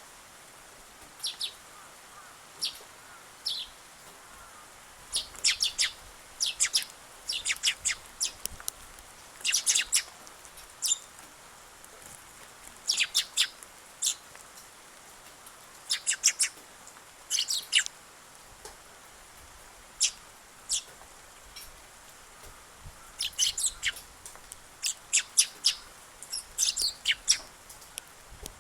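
Eurasian tree sparrows chirping: short, sharp chirps in irregular clusters, some in quick runs of several, with brief gaps between.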